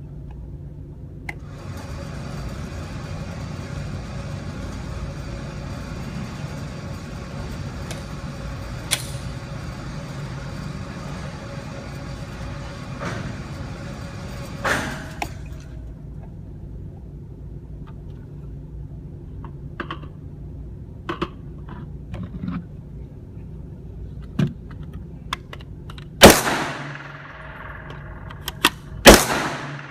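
Two loud gunshots near the end, about three seconds apart, each with a ringing echo, and fainter shots and clicks earlier on. A steady low hum runs through the first half and fades out about halfway.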